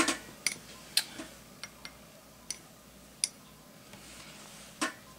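A scattering of light clicks and taps from art supplies being handled on a tabletop, with one louder knock near the end.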